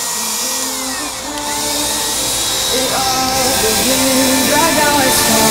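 Cordless electric paint spray gun running with a steady hiss while spraying wood treatment, under background music with a melody.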